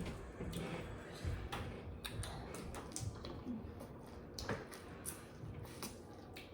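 Mukbang eating sounds close to the microphone: irregular small clicks and smacks from chewing and handling seafood.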